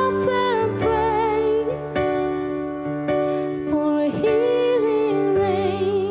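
Live band performance of a slow pop song: a woman singing held notes with vibrato over sustained keyboard chords and bass.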